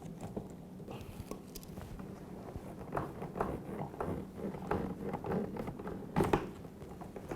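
Small clicks and rubbing as a dishwasher hose is worked off its fitting by hand, with a sharper click about six seconds in.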